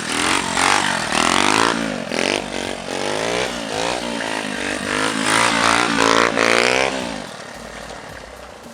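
Honda Monkey minibike's small single-cylinder engine, revved up and let off again and again, its pitch rising and falling in quick sweeps. About seven seconds in the revving stops and the sound drops to a quieter low running.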